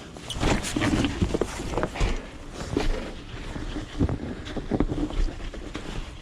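Footsteps crunching through fresh snow, in irregular steps, with wind rumbling on the microphone.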